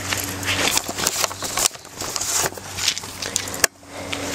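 Scattered sharp knocks, clatter and crunching of the broken coffee maker's plastic and debris.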